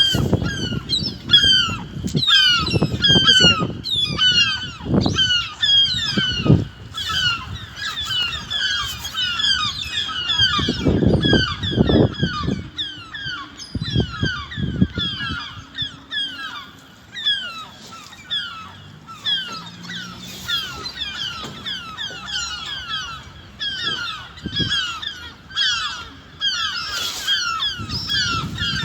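A flock of birds calling without a break: many short, downward-sliding calls overlapping. Low thumps and rustling come and go during the first half.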